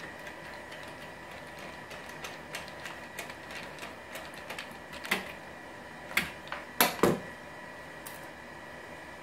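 Screwdriver driving screws into the plastic dish of a Ubiquiti LiteBeam AC Gen2: a run of small rapid clicks, then a few louder knocks, the loudest a double knock about seven seconds in, as the screwdriver is put down on the desk.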